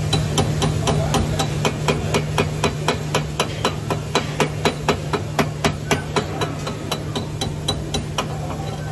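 Chipping hammer rapping on a freshly welded steel part to knock off the slag, a steady run of sharp metal blows about three a second that stops shortly before the end. A steady low hum runs underneath.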